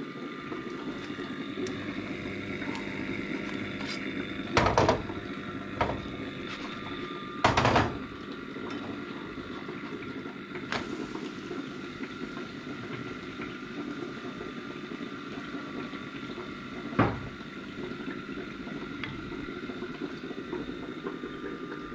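Pancakes cooking in a non-stick frying pan on a gas ring, under a steady low hiss. The pan and spatula knock and clatter three times, about five, seven and a half and seventeen seconds in.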